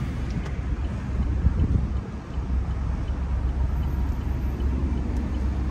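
Steady low rumble of a car driving, heard from inside the cabin: engine and road noise with no sudden events.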